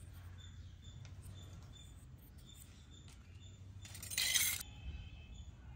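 A miniature plastic toy funnel being set down on a tabletop: one brief scrape about four seconds in.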